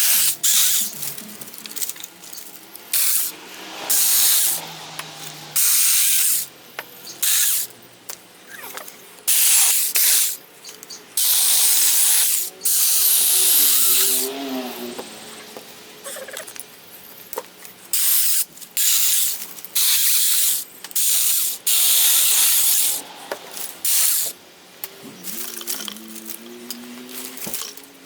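Saker 20 V cordless mini chainsaw cutting wood in many short bursts of a second or two, with a few longer cuts and brief pauses between.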